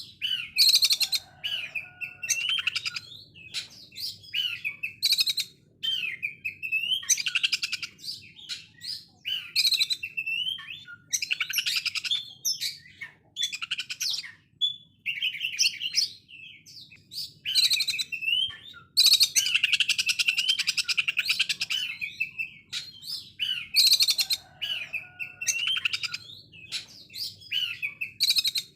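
Oriental magpie-robin (kacer) singing a harsh, fast song: rapid-fire rattling bursts likened to a sewing machine, mixed with short rising whistles, in phrases of a second or two with brief gaps.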